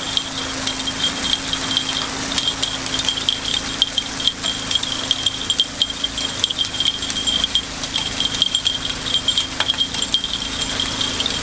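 Metal takoyaki picks clicking and tinkling rapidly and irregularly against an iron takoyaki griddle as the balls are flipped in their cups, over a faint steady low hum.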